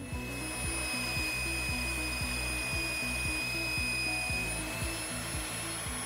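Background music with a steady beat, over a power tool running with a steady high whine and hiss.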